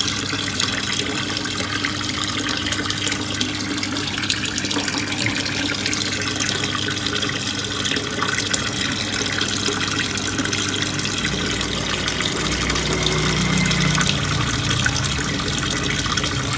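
Water pouring steadily into a turtle tank, splashing and gushing at the surface, with a low hum underneath that swells slightly in the second half.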